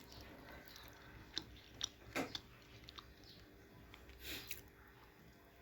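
Faint chewing and eating sounds at a meal, with a few soft clicks scattered through.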